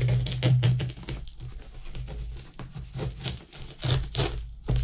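Black plastic film wrapped around a parcel crinkling and ripping as it is peeled and torn open by hand, in a run of short crackles and tears.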